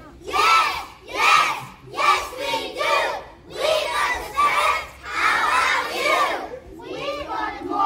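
A large group of young children chanting and shouting together in unison, in loud bursts about once a second.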